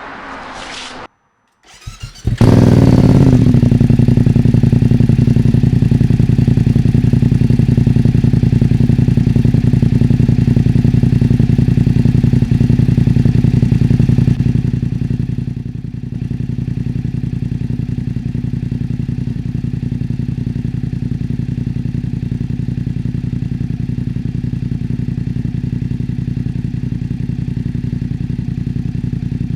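A BMW F900R's parallel-twin engine starts a couple of seconds in and idles steadily, extremely loud through a MIVV X-M1 slip-on muffler with its dB killer removed. About halfway through, the idle settles to a slightly lower level.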